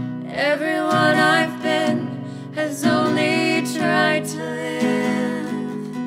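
Two women singing together over a strummed acoustic guitar, a sung phrase starting about half a second in with a wavering, held pitch.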